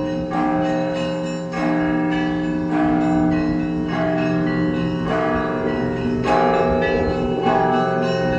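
Russian Orthodox monastery bells being rung: a peal of several bells of different pitches, smaller bells struck about twice a second in a rhythmic pattern over deeper bell tones that ring on beneath them.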